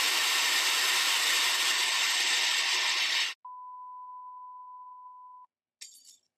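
Loud television static hiss for about three seconds, cutting off abruptly to a steady colour-bars test tone, a single high beep held for about two seconds, then a brief scratchy burst near the end.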